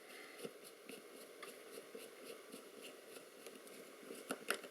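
Faint small clicks and scrapes of a screwdriver undoing the small screws around the front of an aircraft altimeter's case, with a few sharper clicks near the end.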